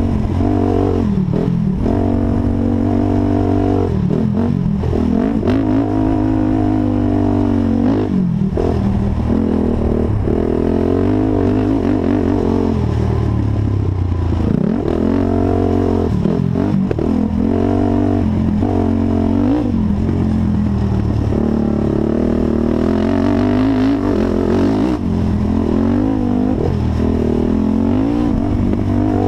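Honda TRX450 quad's single-cylinder four-stroke engine being ridden hard, revving up and dropping back over and over as the throttle opens and closes, with some clatter alongside.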